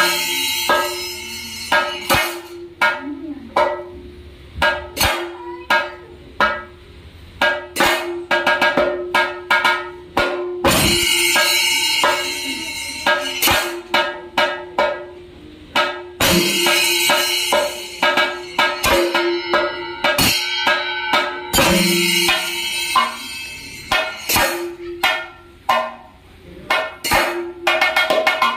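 Thayambaka: chenda drums beaten with sticks in fast, dense strokes, with a metallic clash of cymbals joining in bright stretches several times.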